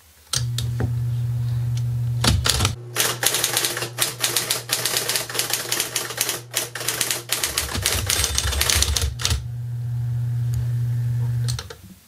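A 1950s Smith-Corona 5TE Typebar Electric portable typewriter: its motor starts with a steady hum, then a run of rapid electric keystrokes snapping the typebars against the platen lasts about seven seconds. The motor hums on alone and shuts off near the end.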